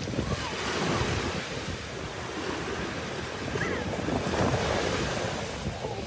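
Small Gulf of Mexico waves breaking and washing up onto a sandy beach, swelling louder about a second in and again a little past the middle, with wind buffeting the microphone.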